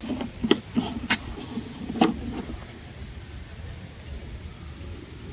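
Several sharp clicks and knocks in the first two seconds or so as the oil filler cap and an oil bottle are handled, over a low steady rumble.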